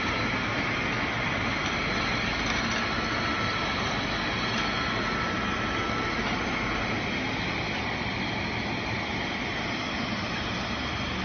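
Automatic filling and capping machine line running: a steady mechanical hum of the conveyor and capper, with a thin whine that stops about seven seconds in.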